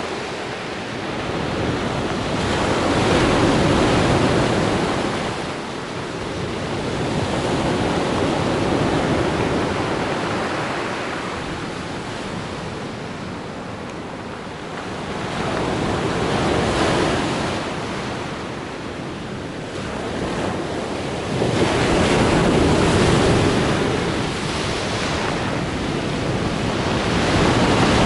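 Black Sea surf: waves breaking and washing on the shore, swelling and ebbing every few seconds.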